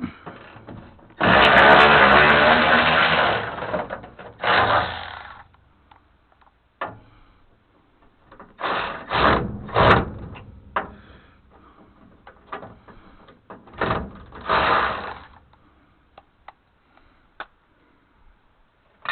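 Cordless power ratchet running in bursts on severely rusted truck body bolts: one long run of about two seconds, then shorter pulls and a few quick blips, with small metal clicks between.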